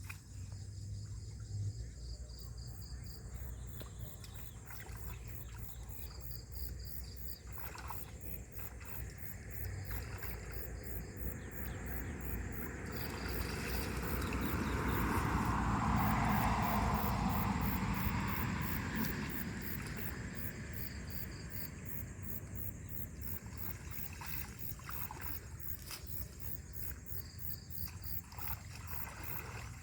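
Insects chirping in rapid, evenly repeated pulses. A broad rushing noise swells up about halfway through and fades a few seconds later.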